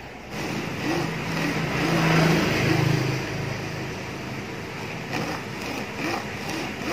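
Small electric drill spinning a steel rivet nail while a flat file rasps against it, shaping the rivet into a carburettor jet needle. The motor hum drops in pitch and the filing is loudest about two to three seconds in, as the file bears down on the spinning rivet.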